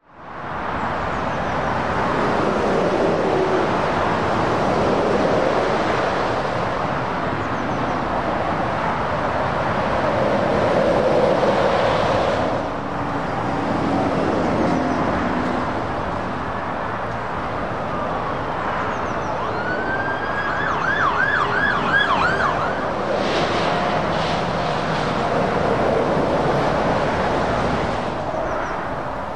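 Road traffic passing in a steady rush that swells and fades as each car, van and lorry goes by. About two-thirds of the way through, an ambulance siren yelps in quick rising-and-falling sweeps for a second or two.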